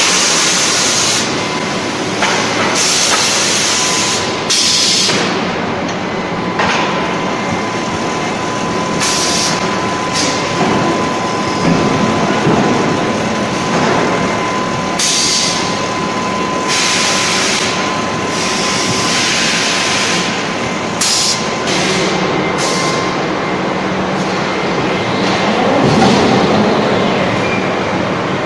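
Automatic flange forging line with mechanical and electric screw presses and handling robots running: a loud, steady industrial din with a faint steady whine, broken irregularly by a dozen or so short, sharp hisses.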